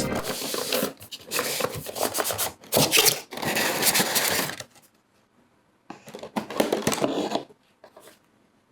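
Scraping and rubbing of hand work on materials, in a run of noisy bursts that stops about halfway, with one more burst after a short silence and a faint tap near the end.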